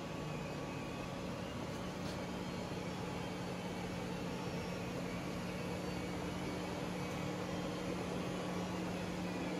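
Steady whir of fans and motors with a constant low hum, typical of a room of 3D printers running.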